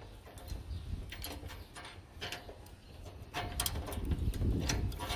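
Irregular metallic clicks and clinks of a socket ratchet and pliers being fitted and worked on a nut and bolt, with low rumbling handling noise growing louder about halfway through.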